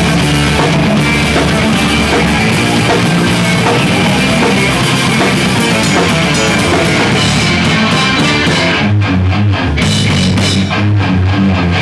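A rock band playing loudly together: a full drum kit with cymbals, electric guitars and bass. About nine seconds in, the cymbal wash drops back and the drum hits and low notes come through more separately.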